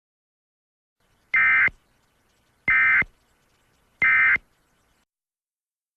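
Three short, identical bursts of Emergency Alert System digital data tones, each under half a second and about a second and a half apart. They are the end-of-message signal that closes the alert.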